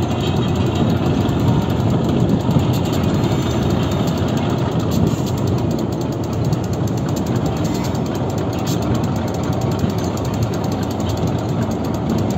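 Diesel engine of a Pakistan Railways RGE-class locomotive chugging steadily under way, heard up close beside the engine as the train rolls along.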